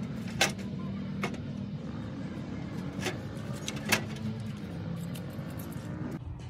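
A motor running steadily with a low hum, while four sharp knocks ring out over it. The hum drops away shortly before the end.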